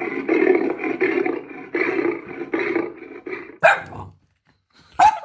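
Recorded lion roar played through a smart speaker: a run of rough, pulsing grunts, several a second, that stops about three and a half seconds in. Two short sharp sounds follow, about a second and a half apart.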